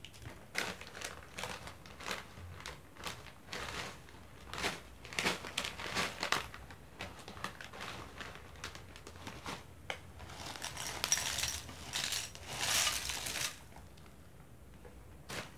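Plastic snack packet crinkling as it is opened and handled, with many short crackles. Toward the end, a louder spell of rustling as dry crackers are tipped out of the bag into a glass bowl.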